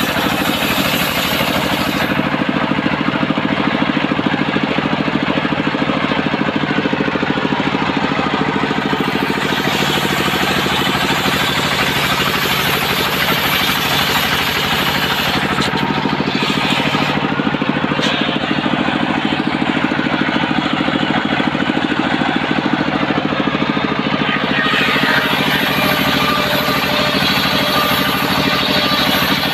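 Engine-driven home-built circular sawmill running steadily, cutting coconut-palm wood. A high hiss drops away for several seconds, twice.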